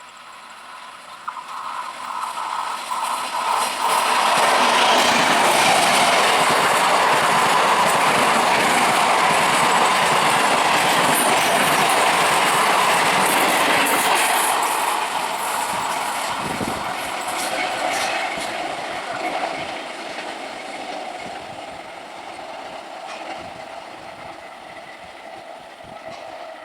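A train passing at speed, with its wheels clicking over the rail joints. The sound builds over the first few seconds, stays loud for about ten seconds, then slowly fades away.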